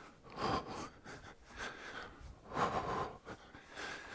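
A man breathing hard from exertion, with two stronger breaths about two seconds apart and fainter ones between.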